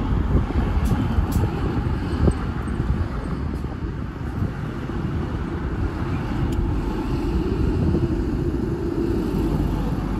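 Wind buffeting the microphone over a steady low rumble of vehicle noise, with a vehicle's hum growing louder from about six seconds in.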